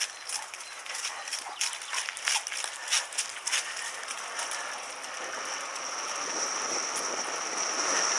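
Bicycle rolling on asphalt with a dog running alongside: quick irregular clicks in the first few seconds, then a steady rushing hiss with a high whine that grows louder toward the end.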